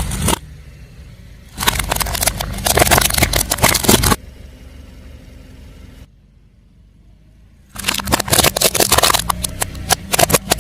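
Car tyre rolling over and crushing crunchy objects: two stretches of dense crackling and snapping, with the car's engine running low underneath. Each burst starts and stops abruptly, with quieter engine hum between them.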